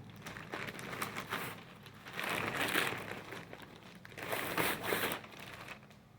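Packaging crinkling and rustling as it is handled, louder in two spells about two and four seconds in.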